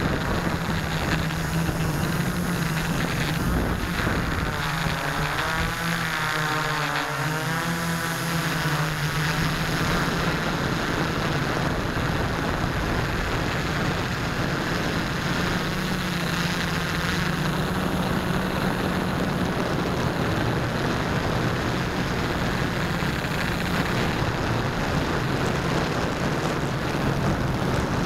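Model airplane's motor and propeller running steadily at cruise, heard from a camera mounted on the plane itself, with a steady hum under rushing wind noise. From about five to ten seconds in, the sound swells and wavers.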